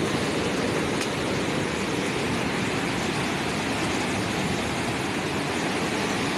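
A fast brown floodwater torrent rushing and churning over debris and a fallen pipe, a steady dense rush of water with no break.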